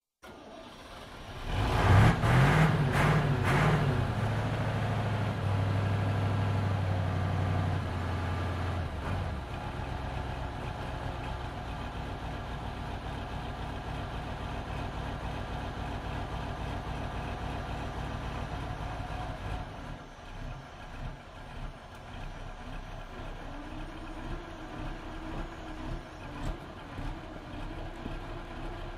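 Fire engine's engine starting: a short burst of cranking catches about two seconds in. It runs at a fast idle, drops to a steadier, quieter idle about nine seconds in, and turns lower and more uneven about twenty seconds in.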